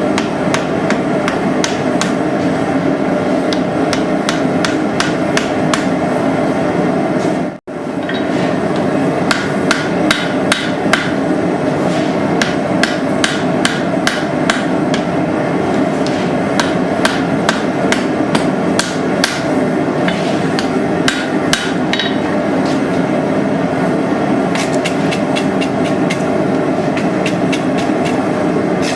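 Repeated hammer blows on hot steel, forge welding the wrapped eye of a tomahawk, several strikes a second, over the steady roar of a gas forge burner. The sound cuts out briefly about eight seconds in.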